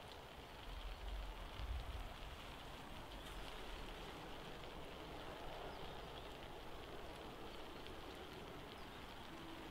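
Faint, steady hiss of ambient noise much like light rain, with a brief low rumble about one to two seconds in.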